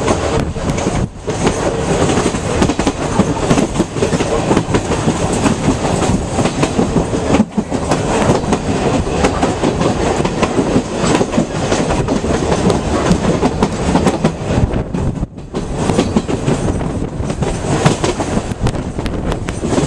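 The Sóller railway's electric train running, heard from on board: steady rumble and rattle with the wheels clicking over the rail joints, dipping briefly a few times.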